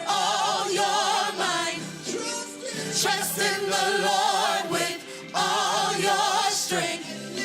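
Gospel choir singing, several voices holding sustained notes with wide vibrato, with little or no bass under them. The phrases break off briefly a few times.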